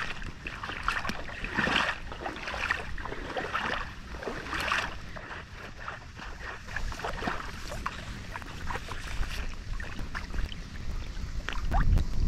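Dry reeds rustling and crackling irregularly as someone pushes through them at a shallow reedy shoreline. Wind buffets the microphone near the end.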